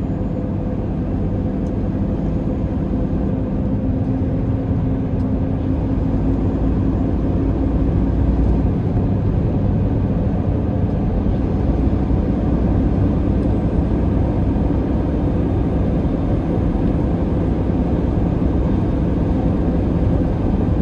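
Semi truck's diesel engine and road noise droning steadily inside the cab while driving on a highway.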